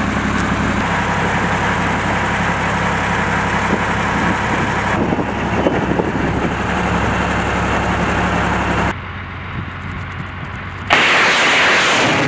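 A Tornado-G rocket launcher's truck engine idling steadily. About eleven seconds in comes a loud, even rushing noise of rockets firing from the launcher.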